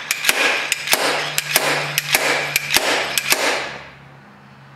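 Slide-hammer puller: its sliding weight is slammed repeatedly against its end stop, about three sharp metallic strikes a second, drawing a bearing out of a heated scooter CVT driven pulley. The strikes stop about three and a half seconds in.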